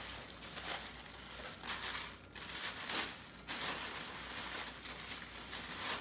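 Tissue paper rustling and crinkling as it is handled and pulled apart by hand while unwrapping a gift, in several spells with short pauses between them.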